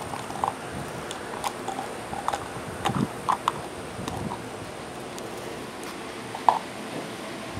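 Labrador puppy playing with a small plastic bottle on concrete: scattered light clicks and taps as it mouths and knocks the bottle and scrabbles on the pavement, with one louder short sound about six and a half seconds in.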